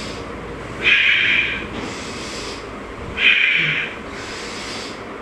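A man breathing forcefully through repeated yoga forward bends: a loud, sharp exhale twice, each followed by a softer, hissier in-breath, repeating about every two and a half seconds.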